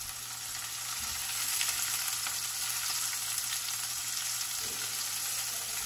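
Chopped onions with garlic, cumin, mustard seeds and green chillies sizzling in hot oil in a stainless steel pan as they are stirred with a silicone spatula: a steady high hiss with small crackles.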